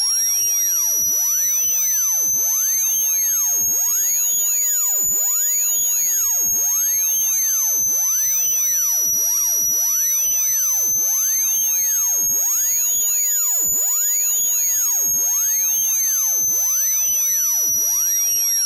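Synthesized speaker-cleaning (water-eject) tone: one continuous high-pitched electronic tone that slowly rises and falls in pitch, peaking about five seconds in and again near fourteen seconds. It is played through a phone speaker so that the vibrating diaphragm shakes trapped water out of the grille.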